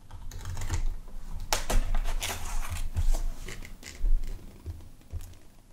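A knife slitting the packing tape on a cardboard parcel, with irregular scraping, rustling and knocking as the box is worked open; the scraping is thickest about one and a half to three seconds in, and a sharp knock comes about four seconds in.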